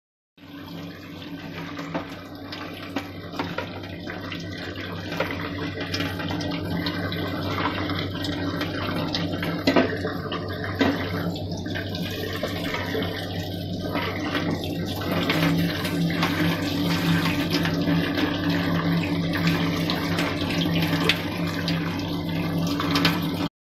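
Tap water running steadily into a plastic colander of cut tomatoes in a sink while hands rub and turn the pieces, with a few light knocks and a steady low hum underneath.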